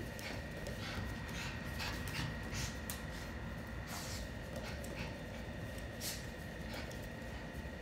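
A small dog, a Shih Tzu, and a kitten play-fighting on a hardwood floor: an irregular string of short scuffles and soft dog huffs. A faint steady high tone runs under it.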